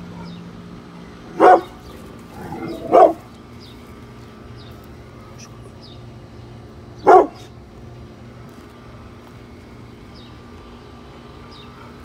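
Brindle pit bull giving three single, sharp barks: two about a second and a half apart, then one more some four seconds later. They are territorial warning barks at workers outside the fence.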